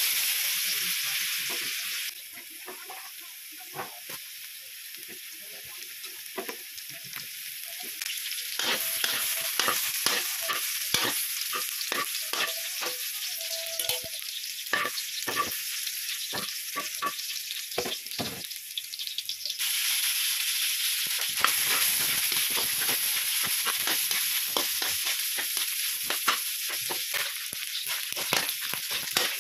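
Garlic and onion, then diced pork, sizzling in hot olive oil in a wok, with a spatula stirring and scraping against the pan in many short strokes. The sizzle is loud at first, quieter after a couple of seconds, and loud again in the last third.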